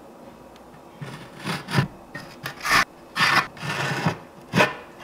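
Putty knife scraping across a wall as it spreads patching compound over a patched hole: a run of about six quick scraping strokes starting about a second in.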